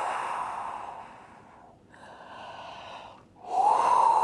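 Wind sound effect made by blowing on coconut shells: long breathy whooshes with a hollow moaning tone. One fades away over the first second and a half, a quieter airy rush follows, and a second whoosh swells up, rising slightly in pitch, about three and a half seconds in.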